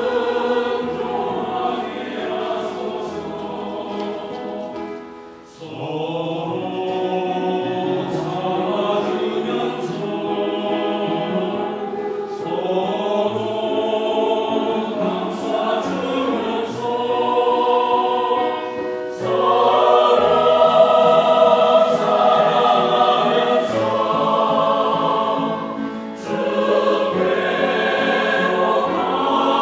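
Church choir singing a Korean Catholic hymn in parts, holding long chords, with short breaks between phrases about five seconds in and again near the end.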